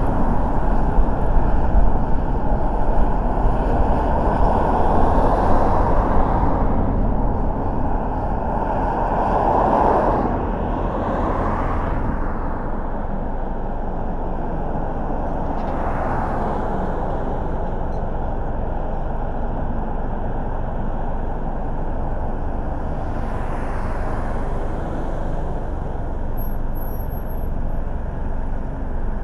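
Steady road noise of a car driving: a low rumble of engine and tyres, with other traffic swelling up and fading past a few times.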